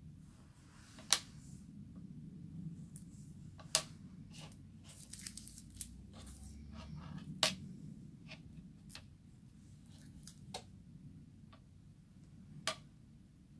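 Craft knife cutting and scoring a thin metallic hot-foiling foil sheet on a cutting mat: short sharp clicks and crackly scratches of the blade and crinkling foil. A denser run of crackling comes about halfway through, and single sharp ticks stand out about a second in, near four seconds, around seven and a half seconds and near the end.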